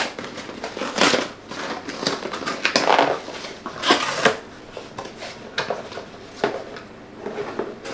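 Cardboard shipping box being torn open by hand: a run of irregular ripping and crinkling noises, the loudest about a second in and again around three to four seconds in.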